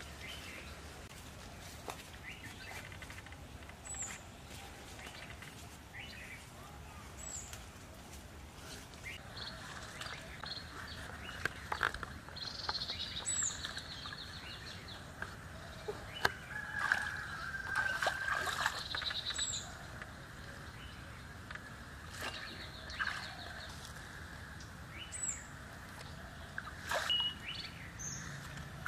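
Birds calling and chirping in rural outdoor ambience: a short, high, falling chirp repeats every three to six seconds, with twittering trills and a held call in the middle of the stretch. Scattered short clicks and knocks run underneath.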